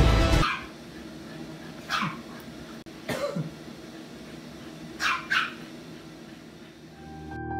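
A dog giving a few short barks, the last two in quick succession about five seconds in, over faint steady background noise.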